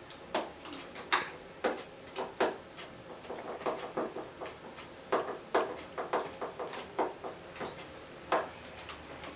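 A string of irregular light clicks and knocks, from hard objects being handled, some sharper and louder than others, with no steady rhythm.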